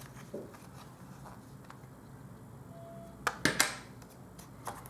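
Light plastic clicks and taps from handling a mini wireless keyboard with its battery compartment opened. There is one faint click early, then a quick cluster of three sharper clicks a little past the middle.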